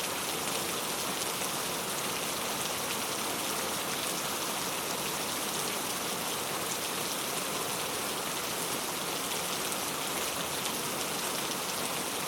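Steady heavy rain falling, an even hiss of many drops spattering on a surface.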